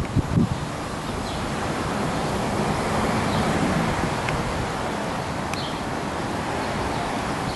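Steady rush of wind through street trees and over the microphone, with low buffeting on the microphone in the first half-second. A few faint short chirps sound high above it.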